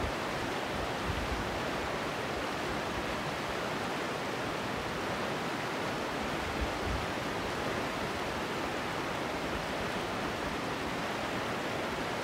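Shallow mountain stream rushing over rocks in a riffle: a steady, even water noise.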